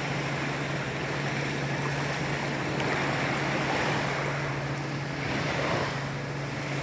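Small sea waves washing and lapping at the sandy shore, a steady wash of water noise, with a steady low hum underneath.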